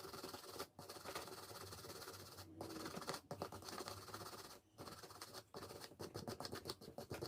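Faint scratchy scraping on a blender motor part as it is cleaned of deposit, broken by short pauses, with a run of quick scrubbing strokes near the end.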